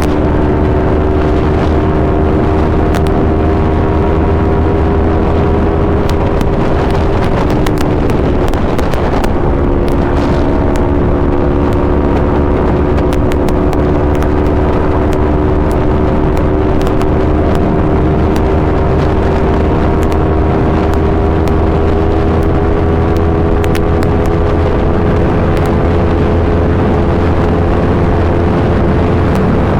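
Yamaha R3's 321 cc parallel-twin engine running through an Akrapovic full exhaust system at a steady pitch. The pitch drops and breaks briefly about eight seconds in, then slowly climbs.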